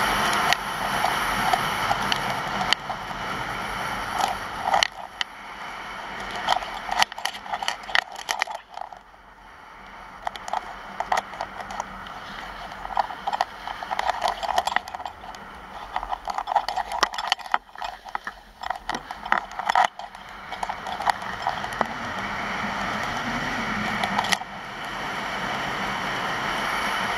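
Skis scraping and chattering over hard-packed snow on a downhill run, with wind rushing over the microphone. The wind is loudest near the start and again near the end; in the middle the scraping comes as many quick, sharp clicks.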